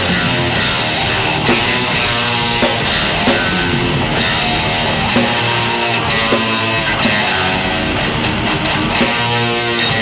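A rock band playing live: electric guitars over a drum kit, loud and continuous.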